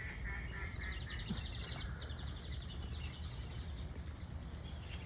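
Birds calling: a quick run of repeated calls in the first second, then two rapid high trills, over a steady low rumble.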